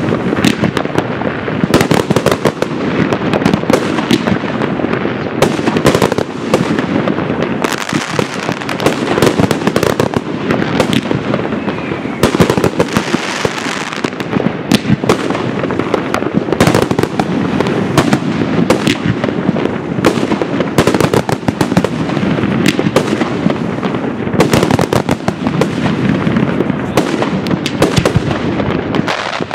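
Large fireworks display: aerial shells bursting in quick succession, a dense crackle with many sharp bangs.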